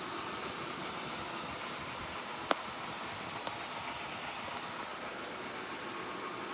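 Vintage Whirlpool refrigerator running with a steady hum and hiss, a sharp click about two and a half seconds in, and a higher hiss joining about two-thirds of the way through.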